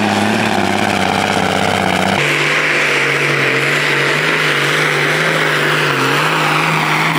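Tuned tractor-pulling tractor engine running loud and steady. About two seconds in, the pitch shifts abruptly as the sound cuts to another engine.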